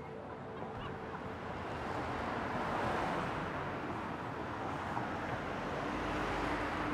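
Street traffic noise: a passing vehicle swells to a peak a few seconds in and eases off, then traffic rises again near the end.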